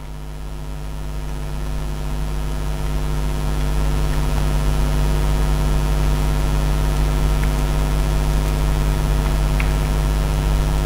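Steady background hum with a buzz of many evenly spaced overtones, growing slowly louder over the first few seconds, with a few faint clicks.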